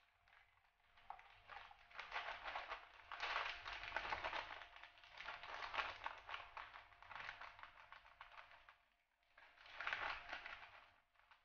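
Brown sugar poured from a glass into a cooking pot: a grainy, rustling hiss of pouring granules that lasts several seconds, stops briefly near the end, then comes back for one more short pour.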